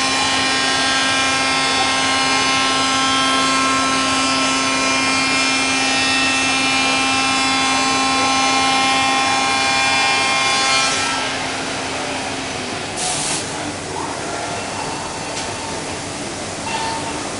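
5-axis CNC working centre's spindle and cutter milling solid-wood rails: a loud, steady whine made of many fixed tones over the cutting noise. About two-thirds of the way in the cutting stops and the whine ends, leaving a lower machine running noise with one short hiss.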